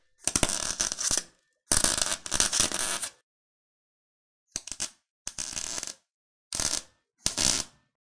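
Electric welding arc crackling in six separate bursts. The first two last about a second each and the last four are shorter, from under half a second to about three-quarters of a second, with silence between them.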